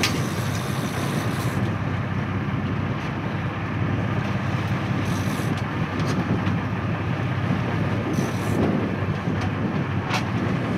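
Sport-fishing boat's engine running steadily under wind and sea noise, with a few faint clicks.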